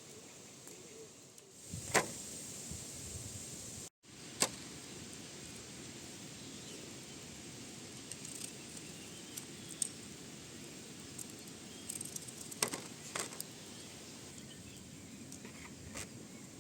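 Outdoor ambience: a steady high hiss with a few sharp clicks or taps, several of them bunched together about twelve to thirteen seconds in.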